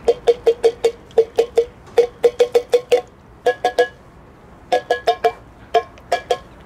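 A metal can of wet cat food being knocked in quick runs of taps, each with a short metallic ring, to shake the food out of it. Some two dozen knocks come in bursts with short pauses between them.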